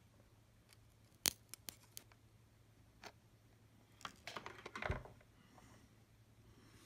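Small handling sounds of fingers working wires into a plastic tool housing: a few sharp clicks, the loudest about a second in, then a burst of scraping and clicking near the end.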